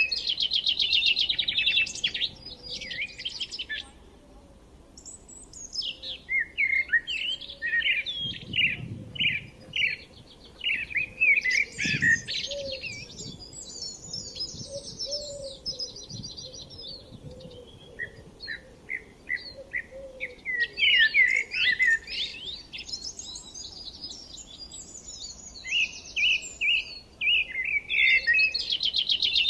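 Songbirds chirping and singing in bouts: rapid trills, strings of short repeated high notes and quick chirps, with pauses of a second or two between bouts. Two soft low thuds come about a third of the way in.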